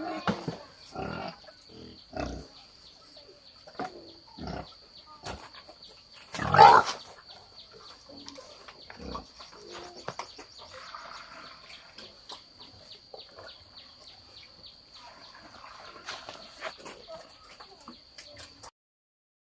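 A group of pigs grunting irregularly as they feed at a trough, with one much louder grunt about six and a half seconds in. A steady high whine runs behind, and all sound cuts off shortly before the end.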